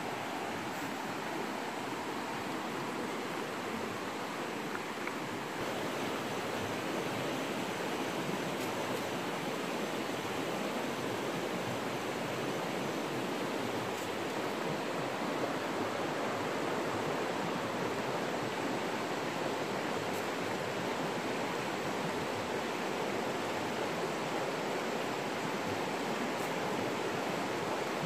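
River water rushing past, a constant, even noise.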